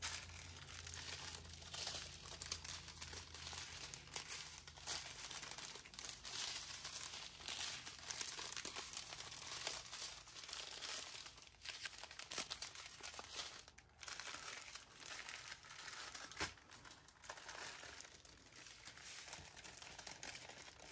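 Crinkly diamond painting kit packaging being handled and unfolded, a continuous irregular crinkling and rustling with a sharper crackle about three-quarters of the way through.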